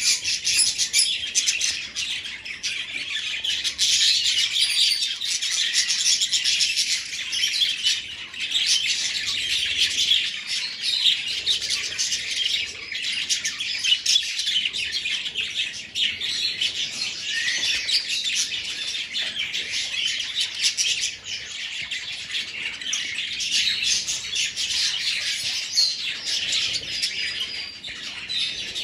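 A flock of budgerigars chattering, many birds chirping over one another without a break.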